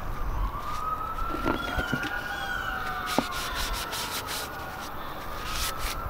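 A siren wailing slowly up and down in the distance, over the soft scrubbing of a rag wiping an oily metal spacer plate, with a light tap about three seconds in.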